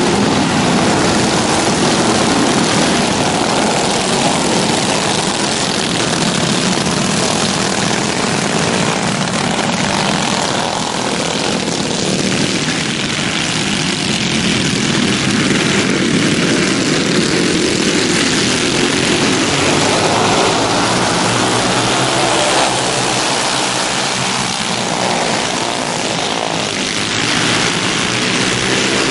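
A pack of alcohol-burning dirt-track racing kart engines at high revs, a steady drone of many small engines together. It dips a little for a few seconds midway while the pack is on the far side of the oval, then comes back up.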